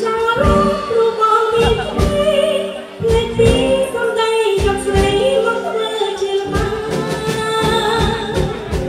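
A woman singing a classic Khmer song into a microphone, her voice amplified, over musical accompaniment with a steady beat.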